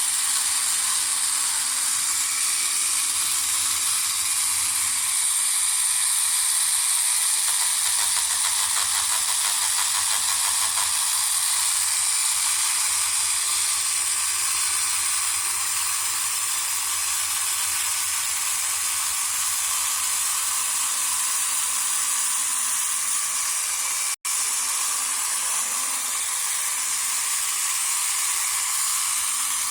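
Small motor and plastic gear-and-cam drive of a tabletop toy robot vacuum kit running steadily, a high mechanical whirr with fine rapid gear chatter. It breaks off for an instant about three-quarters of the way through.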